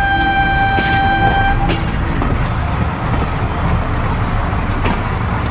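Steam locomotive whistle blowing one steady toot that lasts about a second and a half, over the continuous rumble and clatter of the running train.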